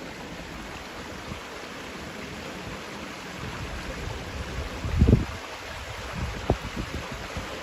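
Steady rumble of an approaching JR Nanbu Line electric train, slowly growing louder, with a few sharp low thumps, the loudest about five seconds in.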